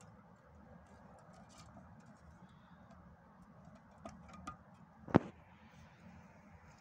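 Light taps and clicks of a cat and kitten scuffling on concrete blocks, with one sharp knock a little after five seconds in.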